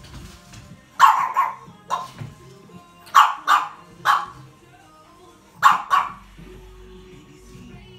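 Brussels Griffon barking in short, chicken-like 'bock' barks, singly and in quick pairs, with pauses between.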